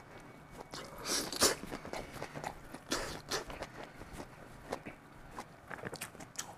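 A person eating close to the microphone: irregular chewing and mouth noises, with scattered small clicks of chopsticks against a steel pot.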